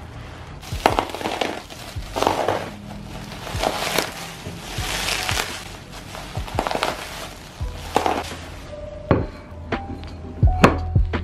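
Plastic bubble wrap rustling and crinkling as a package is unwrapped by hand. From about nine seconds in come a few sharp clinks with short ringing as a ceramic plate is set down and handled on a table.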